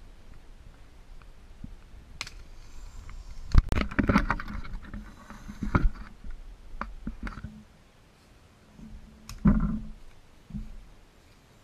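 Footsteps crunching through dry leaf litter and twigs, with rustling of a heavy suit as a person walks close by. The steps come as irregular crackles and snaps, then stop for a moment. A louder rustle and crunch follows a little after nine seconds in.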